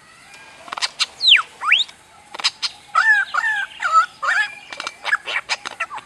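Lyrebird singing a varied mimicking song. Sharp clicks and two fast whistled glides come about a second in, one falling and one rising. They are followed by a run of short warbled notes and more clicks.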